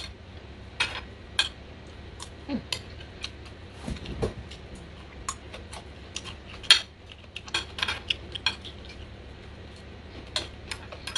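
Metal spoon and fork clinking and scraping against a ceramic dinner plate while eating, in irregular sharp clicks about once or twice a second, the loudest about two-thirds of the way through.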